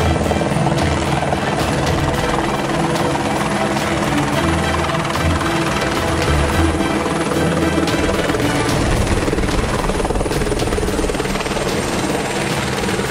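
Turbine helicopter coming in to land and setting down on the helipad: a steady rapid rotor beat over a thin high engine whine that drops slightly near the end.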